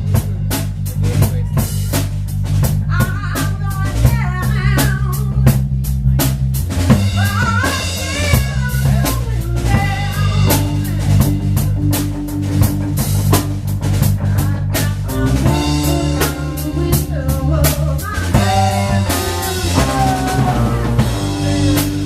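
Live blues band playing an instrumental passage: a drum kit keeps a steady beat over a bass line, while a lead line bends up and down in pitch.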